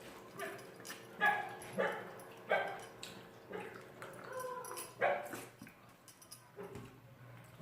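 A dog making short, high yips and whimpers, about six calls roughly a second apart.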